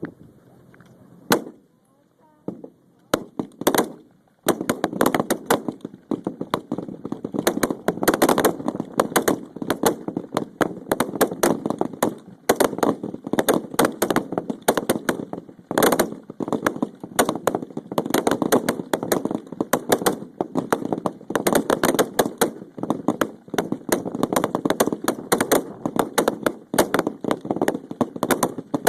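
Rifle fire at a shooting range: a single shot about a second in, a few more around three to four seconds, then many shots in quick, irregular succession.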